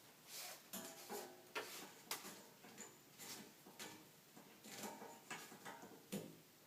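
Faint, irregular clicks and rustles of a strap and its buckle being handled, about a dozen small noises, some with a brief metallic ring.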